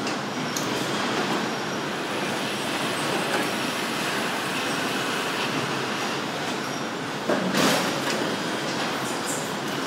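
Car assembly-line din: steady machinery noise with rattles and squeals from the conveyors and overhead carriers. About seven and a half seconds in there is a short, louder rasping burst from the line.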